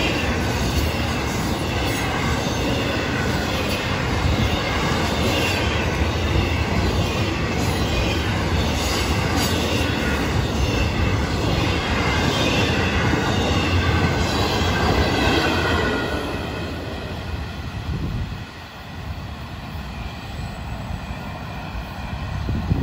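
Freight train's intermodal flatcars rolling past on steel wheels, with a wavering high squeal from the wheels on the rails. About 16 seconds in the sound drops off as the end of the train goes by and fades away.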